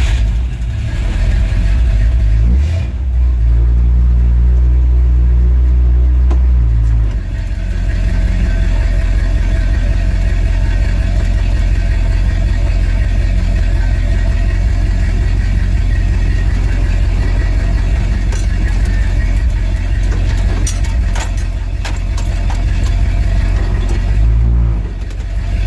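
Chrysler 383 big-block V8 with a new exhaust, a deep rumble heard inside the pickup's cab as the truck drives off and cruises. Its low note changes about seven seconds in.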